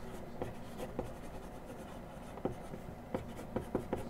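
Permanent marker writing on a cardboard box lid: short scratchy pen strokes, more frequent in the second half.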